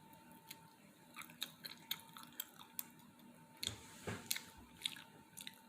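Close-up chewing of a peanut butter and jelly sandwich: many small wet mouth clicks, with a louder stretch about four seconds in. A faint steady hum sits underneath.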